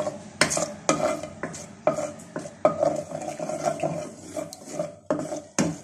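Wooden spatula scraping and stirring green cardamom in melted ghee in a nonstick wok, in repeated strokes about two a second.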